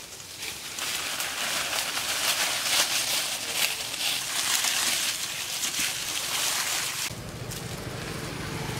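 Dry fallen leaves crackling and rustling under footsteps through leaf litter. About seven seconds in this stops abruptly and a steady low hum takes over.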